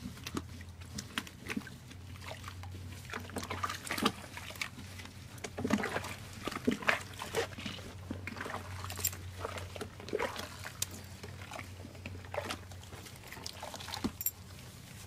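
Water splashing and trickling in a plastic tub as a dog's legs and paws are scrubbed by hand, in irregular bursts that are busiest around the middle. A steady low hum runs underneath.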